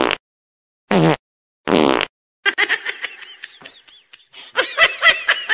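Fart sounds: short rippling blasts, one ending just at the start and two more about a second and a second and a half later, each cut off sharply to silence. From about two and a half seconds a person laughs in quick repeated bursts, louder near the end.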